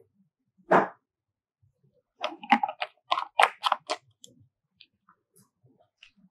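A plastic ink bottle and the printer's ink-tank caps being handled: one knock about a second in, then a quick run of irregular plastic clicks and rattles lasting about two seconds.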